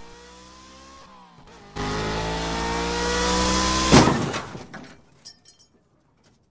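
Car engine running, then speeding up loudly with a rising pitch from about two seconds in. About four seconds in it ends in a loud crash as the car hits a scooter, followed by a few rattling clatters of debris.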